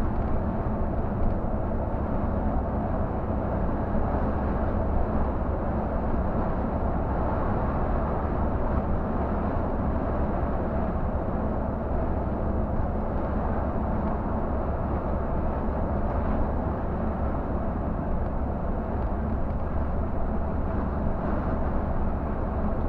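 Scania K124 360 coach's diesel engine running steadily at cruising speed, a deep even drone with tyre and road noise, heard from the driver's seat.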